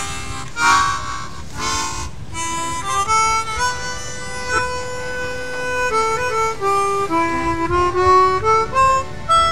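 Harmonica music: a few short, breathy chords, then a slow melody of single held notes.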